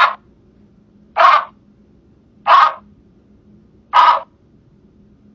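Rabbs' fringe-limbed treefrog calling, recorded from the species' last known individual: short, harsh calls repeated evenly about every 1.3 seconds, four in all.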